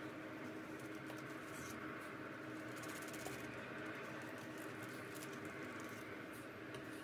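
A bread knife sawing down through a crusty artisan boule, with scratchy rasping and many small crackles as the crisp crust breaks.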